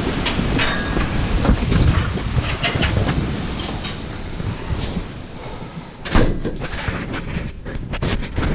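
Strong gusting wind buffeting the microphone, with scattered rattling and clattering and one sharp bang about six seconds in.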